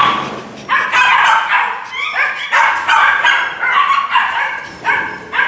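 Belgian Malinois puppy barking and yapping in quick succession, about two short calls a second, as it snaps at a rag waved at it: excited, aroused barking stirred up by the rag.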